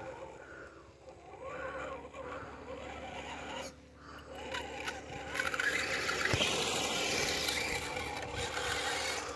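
Electric drive motor of a radio-controlled scale crawler truck whining, rising and falling in pitch as it works a boat trailer in shallow water. About halfway through it gets louder, with a rising whine and the scraping of tyres on wet gravel as the truck pulls the empty trailer out.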